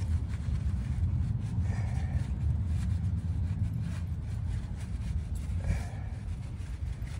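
Microfiber towel rubbing over an alloy wheel, with a steady low rumble underneath that is the loudest sound.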